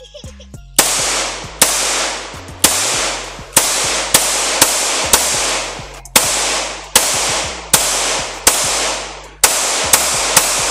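Stoeger STR9 9mm striker-fired pistol fired about fourteen times at an uneven pace, the shots roughly half a second to a second apart. Each shot trails off in a long echo.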